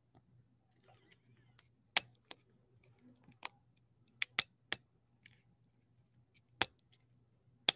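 Plastic clicks and snaps as a camera module is pressed and clicked into place on a mini drone's plastic frame. There are about eight sharp clicks at uneven intervals. The loudest come about two seconds in and near the end.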